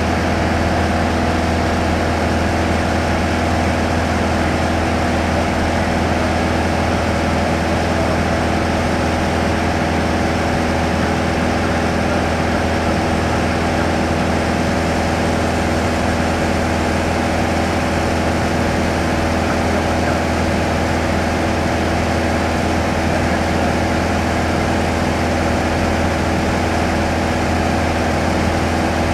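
Steady drone of a light touring aircraft's engine and propeller in flight, heard inside the cabin: one unchanging hum with several held tones over a strong low rumble.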